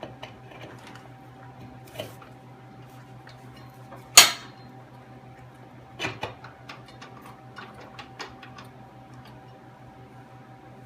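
Metal tools and parts clinking and knocking during hands-on transmission reassembly, with one sharp, loud metal clank about four seconds in and a few more knocks around six seconds. A steady low hum runs underneath.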